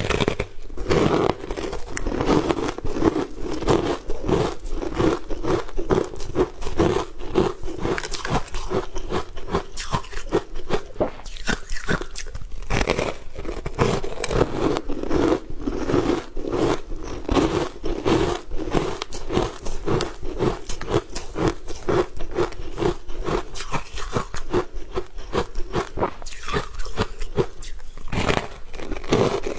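Close-miked crunching as a person bites and chews a block of purple-coloured frozen sweet ice: a dense, steady run of crisp crunches without pause.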